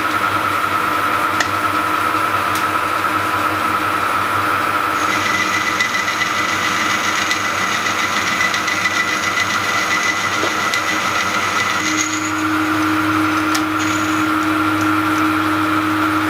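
Metal lathe running while a boring tool cuts the axle hole of a locomotive driving wheel, boring it just under size ready for reaming. It is a steady machine noise. A high-pitched whine comes in about five seconds in and stops around twelve seconds, when a lower steady hum takes over.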